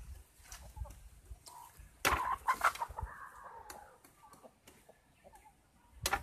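Farmyard chickens clucking, with a rooster crowing about two seconds in, its call held and slowly falling. A sharp knock comes near the end.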